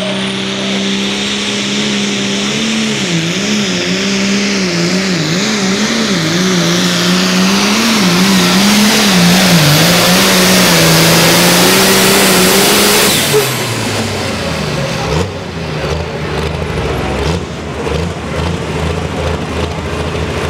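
Allis-Chalmers pulling tractor's diesel engine at full throttle, pulling a sled. Its pitch wavers up and down as the tractor bounces with its front wheels off the ground. About 13 seconds in the throttle is let off, the pitch slides down, and the engine drops to a lower, rougher running.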